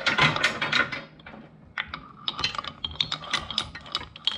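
Steel anchor chain clinking and rattling against itself and the windlass gypsy as it is lifted and fed over by hand. A dense run of link clicks in the first second, a short lull, then more clinking.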